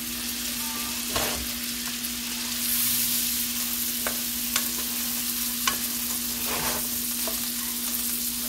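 Lamb chops frying in foaming butter with garlic, a steady sizzle that swells a little about three seconds in. A few sharp clicks come as a plastic slotted spatula moves the chops in the pan.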